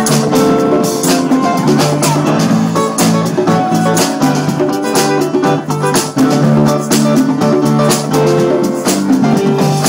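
A live band playing with electric guitar, keyboard and drum kit.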